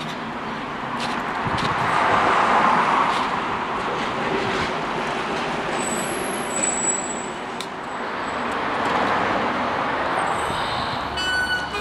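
Street traffic passing, a steady wash of road noise that swells as a vehicle goes by about two seconds in, with a brief high squeal around the middle.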